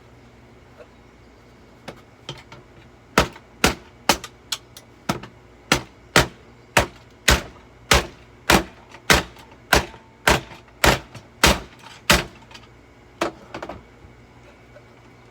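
A run of hard blows struck on a Eureka The Boss bagged vacuum cleaner, about two a second and around eighteen in all, starting about three seconds in, with a couple of lighter knocks after a short pause near the end.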